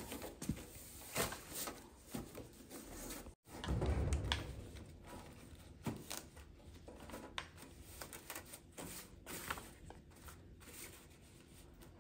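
Light knocks, clatter and rustling of hands handling kitchenware and food while preparing sticky rice, with a brief low rumble about four seconds in.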